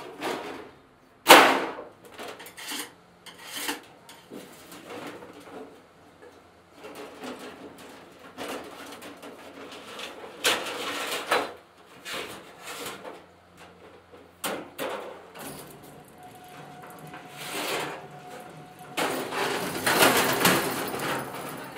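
Flattened oil-drum sheet steel being handled and worked: a loud metallic clank about a second in, then scattered knocks and scrapes. Near the end comes a longer grinding, scraping stretch as a sheet goes through a sheet-metal rolling machine.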